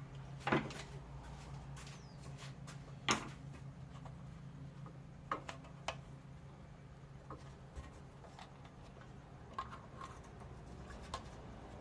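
Scattered clicks and light knocks of hands and tools working on a small engine's plastic primer bulb fitting, the sharpest about half a second and three seconds in, over a steady low hum.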